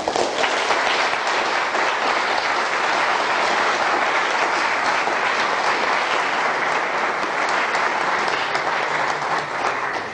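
Audience applauding at the end of a lecture, starting suddenly, holding steady, then thinning out near the end.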